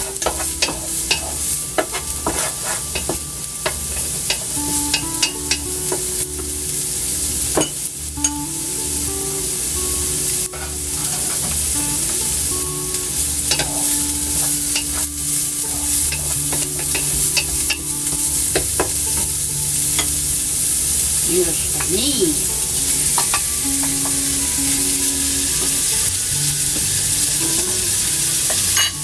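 Ginger and green onion frying in a little oil in a large pot with a steady sizzle, stirred with a wooden spatula that scrapes and clicks against the pot many times.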